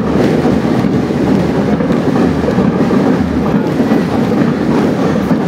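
Wind rumbling on the phone's microphone: a loud, steady rumble with no clear rhythm.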